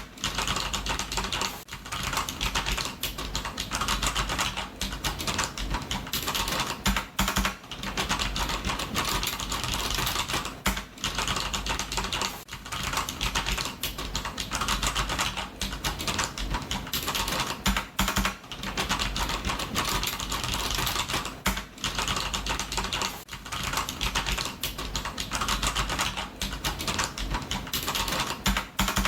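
Fast, continuous typing on a computer keyboard, a dense run of key clicks broken by short pauses every second or two.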